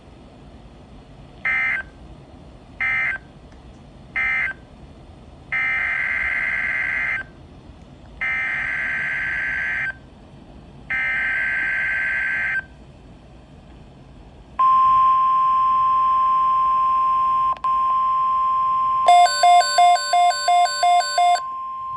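NOAA Weather Radio alert tones on a Midland WR-120 weather radio. Three short screechy digital data bursts (the SAME end-of-message code) close the warning, then three longer bursts (the SAME header for the next message), then the steady 1050 Hz weather radio alarm tone starts about two-thirds of the way in. A rapid beeping from the radio's own alert is layered over it near the end.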